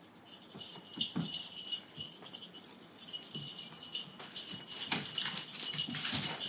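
A cat and a dog scuffling about, with rattling and clicking and a thin high tone running through much of it. It grows louder toward the end.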